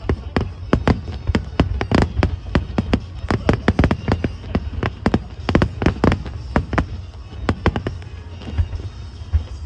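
Aerial fireworks bursting in a rapid barrage of sharp bangs, several a second, over a deep rumble. The bangs thin out after about seven seconds.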